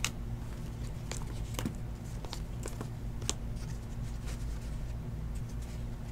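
Trading cards being handled and set down on stacks on a table mat: scattered light, sharp card clicks and taps, about a dozen, over a steady low hum.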